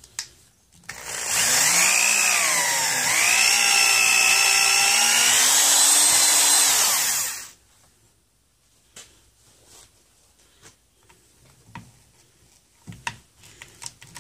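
Corded electric drill with a 3/8-inch bit boring into the end of a wooden hoe handle: the motor whine dips in pitch twice as the bit bites, then runs steady for several seconds and stops. A few faint clicks and knocks follow.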